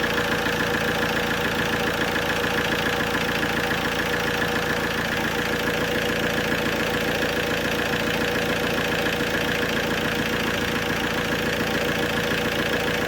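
Alfa Romeo 1.9 JTD 8-valve common-rail diesel idling steadily, warming up while being checked for a crank-no-start-when-hot fault from a failing position sensor.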